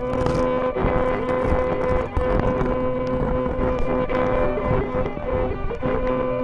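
Violin heard through a contact mic on its body, sounding as a held drone on two notes about an octave apart, with scratchy crackling throughout.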